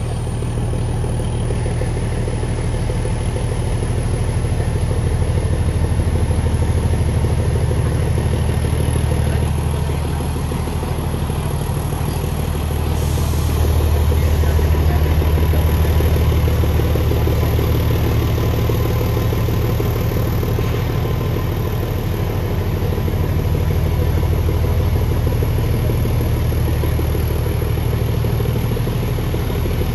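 Narrow-gauge diesel locomotive's engine running steadily under heavy load, swelling louder twice, as the ageing locomotive labours on a steep gradient it can barely climb.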